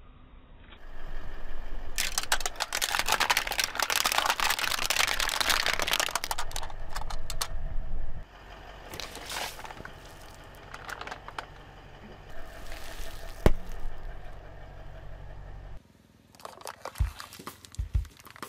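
A car tyre rolls over and crushes disposable plastic lighters, with dense crackling and crunching of breaking plastic for several seconds. Fainter crackles follow, then a single sharp snap, and a few low thumps near the end.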